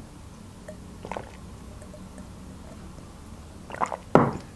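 Water drunk from a glass: a faint swallow about a second in, then a few louder mouth sounds near the end.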